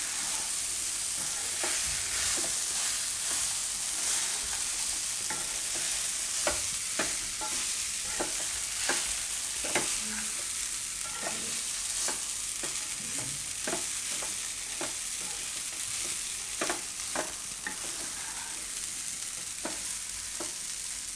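Poha (soaked flattened rice) with vegetables being stirred and tossed with a wooden spatula in a non-stick kadai over a low gas flame: a steady frying sizzle with irregular scrapes and taps of the spatula against the pan.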